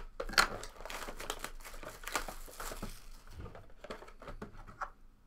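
Cellophane shrink-wrap being torn and crumpled off a sealed trading-card box: a run of irregular crinkling and crackling rustles.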